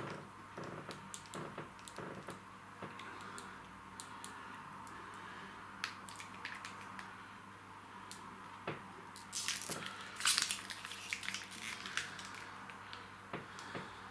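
Soft plastic mayonnaise pouch being squeezed, squelching and crinkling with scattered small clicks. A louder crackling burst comes about nine to ten seconds in and lasts about a second.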